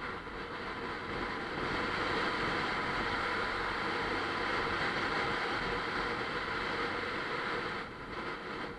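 Wind rushing over the microphone of a moving motorcycle, with the Bajaj Pulsar 150's single-cylinder engine running underneath. The rush grows louder about a second and a half in and eases near the end.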